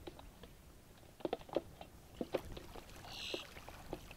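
Cast net being hauled in by its hand line: light water sloshing with a scattered series of soft knocks, and a brief high squeak about three seconds in.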